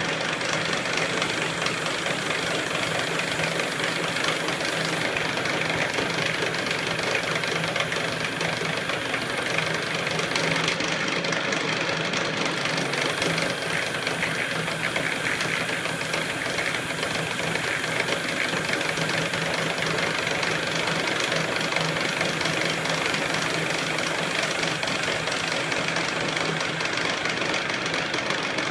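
KART E1N metal lathe running steadily: a constant low machine hum with a dense rattle over it.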